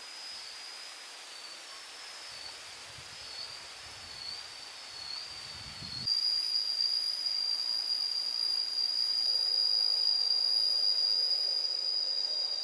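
Cicadas droning in one steady high-pitched tone. The drone wavers for the first half, then about six seconds in it turns louder and steadier.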